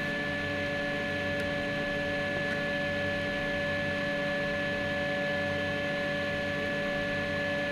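Fullextruder PRO desktop filament extruder running during spooling: a steady motor hum with several constant whining tones.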